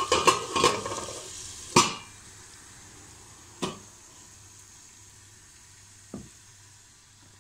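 A lid being clattered onto a frying pan of sizzling liver and vegetables, several quick knocks in the first two seconds. The sizzling fades once the pan is covered, and two lighter knocks follow later.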